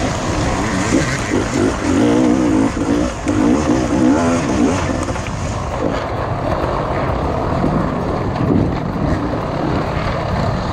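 Off-road dirt bike engine revving, its pitch rising and falling again and again as the throttle is worked.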